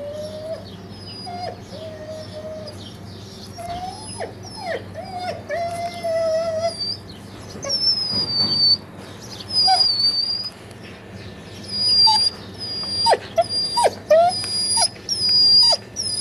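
A dog whining. Through the first half come long, wavering whines. From about halfway on, the whines turn shorter, higher-pitched and louder, repeating every second or so.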